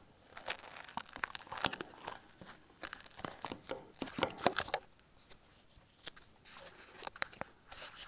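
Handling noise from an SJ4000 action camera being picked up and moved: crackling rustles and irregular sharp clicks against the camera body, easing off for a moment about five seconds in and then starting again with a sharp click.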